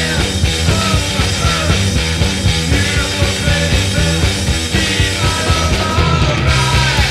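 Loud rock music with a fast, steady beat, laid over the pictures as a soundtrack.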